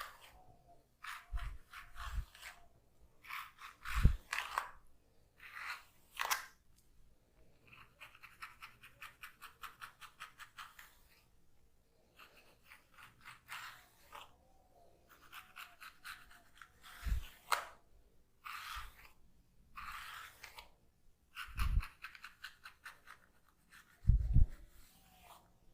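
Comb scratching through hair and over the scalp during a head massage, in crackling strokes. About a third of the way in comes a quick run of short scratches, about seven a second. A few dull thumps, the loudest sounds, break in between.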